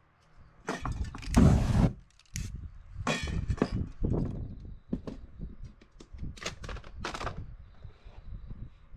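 Handling clatter: several bursts of stones shifting and clinking in a metal tin and a sheet of paper being handled, the loudest about a second in.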